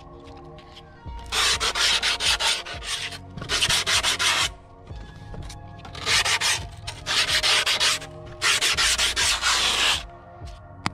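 Skateboard griptape being rubbed hard along the edge of the deck to file the edge smooth. It comes in four runs of fast, gritty back-and-forth scraping strokes.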